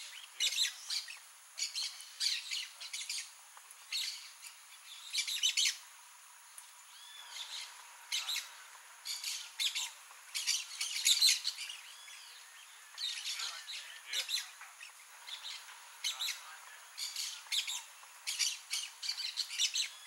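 Blaze-winged parakeets calling: clusters of short, harsh chattering calls about every second or two, with a few brief pauses between clusters and some short rising-and-falling whistles among them.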